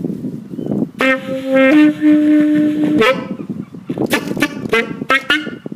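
Two long, steady honking notes, the second a little higher than the first, then a run of short honks.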